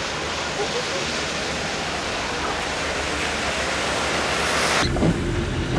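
Steady hiss of rain falling on a wet street. Near the end it cuts off abruptly and a low rumble takes over.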